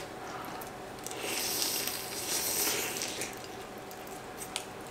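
Dinner-table eating sounds: a soft hiss from about a second in to about three seconds, with a few light clicks of chopsticks on tableware.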